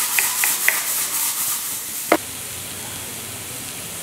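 A spatula stirring minced meat and vegetables in a frying pan, scraping about four times a second over a sizzle. About two seconds in there is a single sharp knock, and after it only a steady, quieter sizzle of the frying mince.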